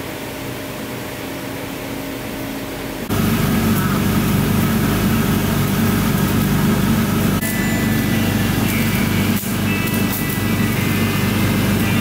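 A quieter steady hum, then about three seconds in a gas burner at high flame starts abruptly: a loud, steady rushing sound with a low hum, with a few faint clicks and thin high tones over it later on.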